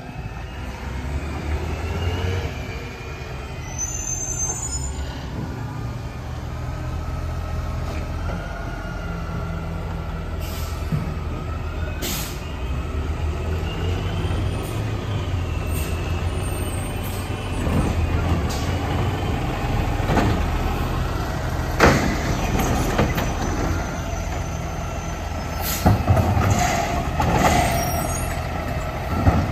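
CNG-fuelled Mack garbage truck with a Labrie automated side loader, its engine running in a low, steady rumble as it moves up and pulls in beside the curbside bins. A few sudden sharp sounds stand out over the engine about halfway through and again near the end.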